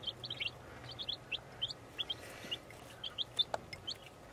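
Several week-old chicks peeping: a steady stream of short, high cheeps that slide downward in pitch, several a second, over a low steady hum.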